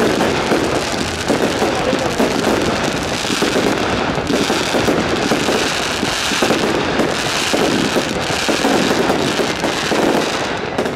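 Aerial fireworks display: a dense, unbroken barrage of shell bursts and crackling stars.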